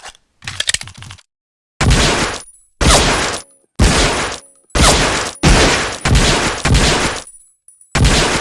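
Automatic pistol sound effect: a few quick light clicks, then a string of loud single gunshots about a second apart, each with a fading echo.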